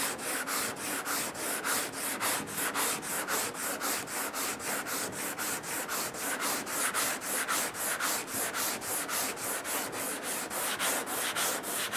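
Long sanding block with sandpaper scrubbing back and forth over cured body filler in quick, even strokes, about four a second. This is hand block-sanding a guide-coated filler repair down to level, knocking down the high spots.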